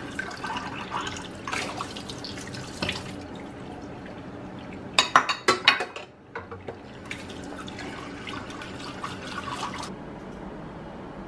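Tap water running into a kitchen sink as dishes are rinsed, with a quick burst of clattering dishes about five seconds in. The running water stops shortly before the end.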